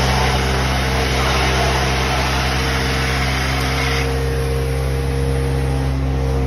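Vacuum truck's engine running steadily under a loud rushing hiss of suction, the hiss dropping off about four seconds in.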